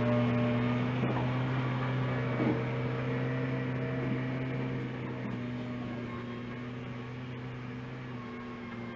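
An engine running steadily at a constant speed, slowly growing fainter, as of machinery used to move a dirt pile.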